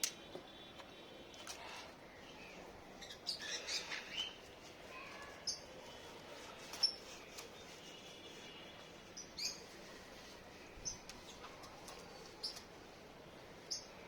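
Birds chirping faintly in short, scattered calls, one every second or two, with a brief cluster of rustling about three seconds in.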